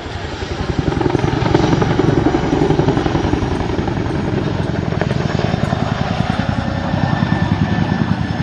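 Helicopter's rotor beating in rapid, even pulses, growing louder about a second in and swelling again near the end.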